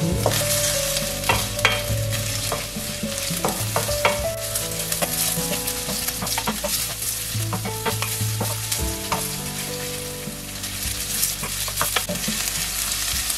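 Sliced onions and ground ginger sizzling in hot oil in a stainless-steel pan while being sautéed until soft. A wooden spatula stirs them, scraping and knocking against the pan at irregular moments.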